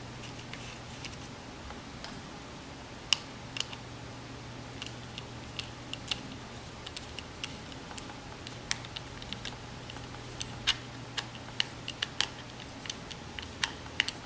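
Small irregular clicks and taps of a screwdriver working a set screw into the handle of a Bahco Laplander folding saw to lock the new blade in, over a low steady hum.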